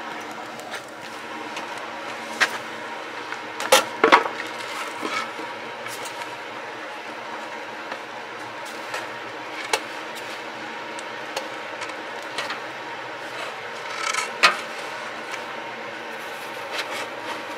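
Steady whir of a small electric blower fan forcing air into a wood fire in a steel drum evaporator's firebox, with a few sharp knocks and clicks, the loudest about four seconds in and again near the end.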